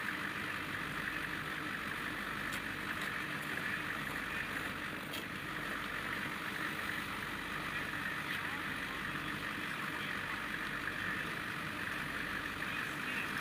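Steady wind blowing across open snow, an even rushing noise with a few faint clicks.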